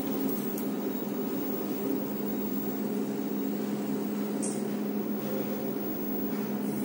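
Steady electrical hum of endoscopy equipment running, with a brief faint hiss about four and a half seconds in.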